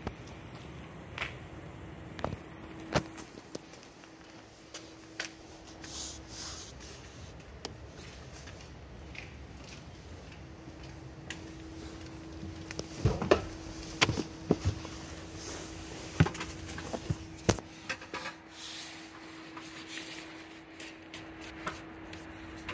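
Scattered clicks, taps and knocks of someone climbing into an SUV's cabin and handling the interior, with a cluster of louder knocks about halfway through. A faint steady hum runs underneath.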